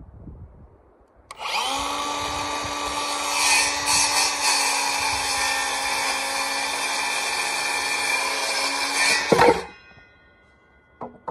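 Circular saw starting up about a second in and cutting through a wooden board at a steady pitch for about eight seconds, then spinning down once the cut is through.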